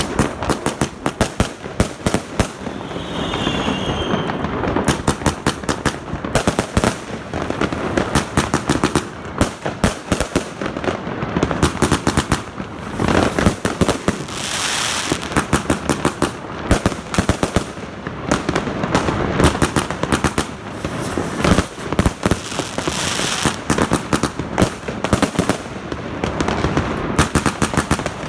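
A Zena 144-shot cakebox firework battery going off. Shots launch and burst in fast, unbroken succession.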